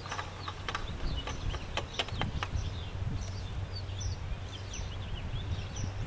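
Small birds chirping over a steady low rumble, with a few light clicks in the first couple of seconds as a new oil filter is spun on by hand.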